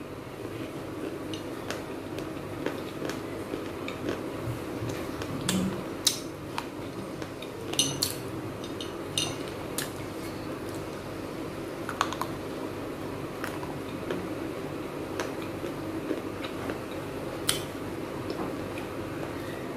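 Small baked-clay pots being snapped apart by hand and crunched between the teeth: irregular sharp cracks and clicks of brittle terracotta, about one every second or so.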